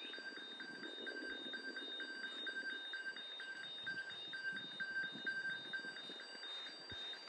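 Railway level-crossing warning bell ringing steadily as an evenly repeated electronic ding, a few strikes a second, the signal that a train is approaching the crossing.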